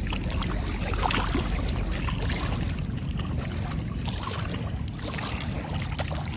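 Wind rumbling on the microphone, with a few faint clicks and taps.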